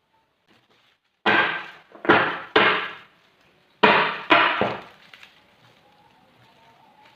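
Wood being struck by a tool: five sharp blows, each with a short ringing decay, coming singly and then in two quick pairs.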